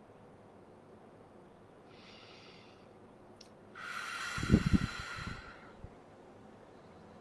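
A person's breath close to the microphone: a faint breath in, then a loud exhale of about two seconds, its puffs thumping on the microphone.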